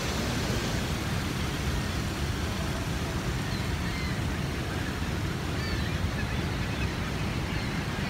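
Steady rushing noise of Niagara Falls' water, an even roar heaviest in the low end.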